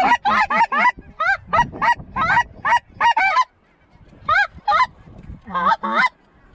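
Goose honks in a fast, loud series: two-note honks that break upward from low to high, densely packed for about three seconds, then after a short pause a few slower honks.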